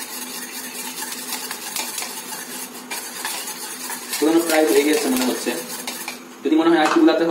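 Rapid clinking and scraping of a thin metal utensil against a ceramic bowl as raw eggs are beaten. A louder pitched sound comes in twice in the second half.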